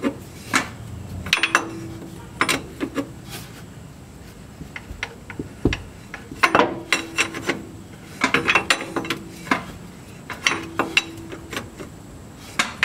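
A foot-long steel wrench clinking and rattling as it is worked on the transfer case switch to loosen it. The clicks come in several short bursts, some with a brief metallic ring.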